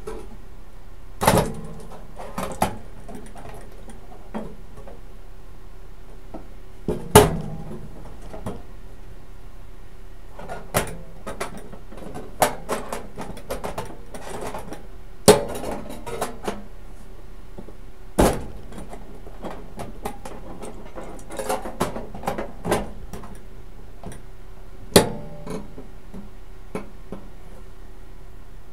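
Irregular sharp knocks and clicks, about ten over the stretch and spaced a second to several seconds apart, from hands-on sheet-metal work during TIG welding. They sit over a steady electrical hum.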